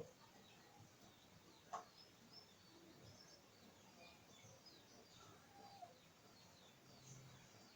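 Near silence with faint, scattered bird chirps in the background and a single click about two seconds in.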